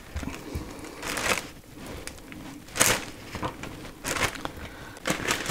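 Plastic zip-lock bag crinkling and rustling in short bursts as raw pork spare rib pieces are handled and dropped into it; the loudest rustle comes about 3 seconds in.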